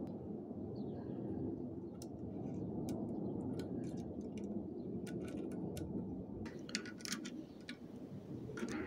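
Light, irregular metallic clicks and ticks of small oil pump vanes and rings being handled and nudged into place, more frequent in the second half, over a steady low background hum.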